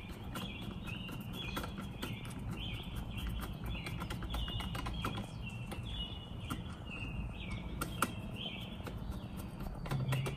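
Hand screwdriver turning small screws into the headlight projector's mounting bracket: a rapid run of small clicks and ticks, over a series of short high chirping notes repeating every half second or so.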